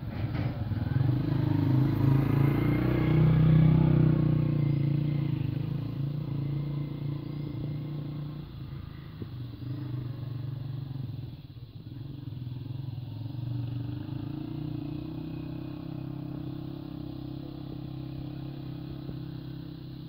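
An engine running, with a low steady hum that is loudest two to five seconds in and then settles lower.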